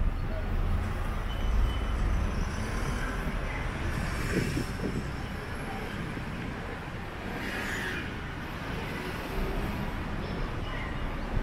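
Street traffic: passing vehicles with a steady low engine rumble under a general street hum.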